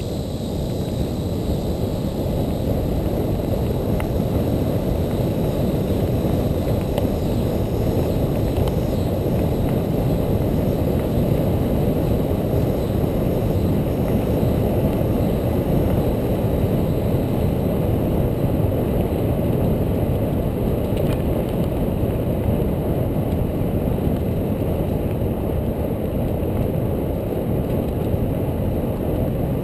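Steady low rumble of wind buffeting the microphone and bicycle tyres rolling over a packed dirt trail, from a camera mounted on a bike riding at speed.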